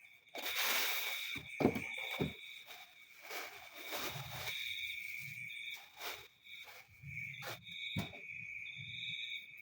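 Rustling and scattered knocks and clicks of things being handled, over a steady high chirping tone with a second, higher tone that pulses on and off.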